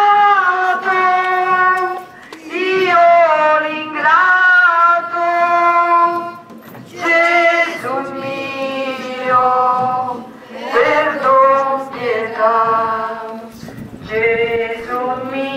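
Women and girls singing a hymn in unison, line by line, with held notes and short breaks between the phrases.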